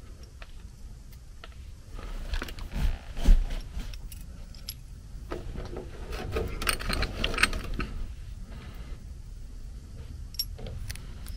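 A new brass thermal expansion valve and its coiled copper capillary tubing being handled: scattered light metallic clicks and rustling, with a dull thump about three seconds in and a busier run of clicks a little past the middle.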